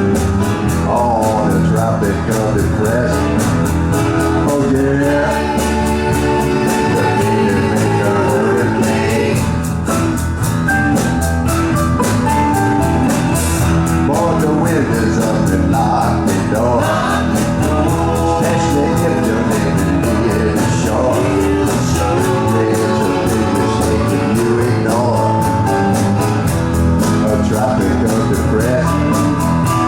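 Live band playing a loud rock song with a steady beat, recorded close to a PA speaker so that the bass is heavy and overpowering.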